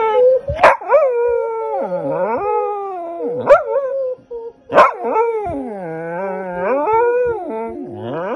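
Shetland sheepdog howling along in long, wavering notes that glide down and back up in pitch, broken by a few short, sharp yips.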